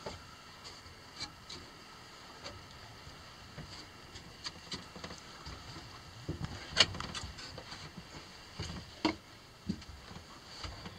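Climbing a wooden ladder: scattered knocks and clicks of hands and boots on the wooden rungs, with the gear rubbing. The sharpest knock comes about seven seconds in, and another about two seconds later.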